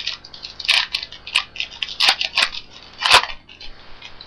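A pack of baseball cards being torn open and handled: a string of sharp crinkling crackles and rustles from the wrapper and cards, strongest around one, two and three seconds in.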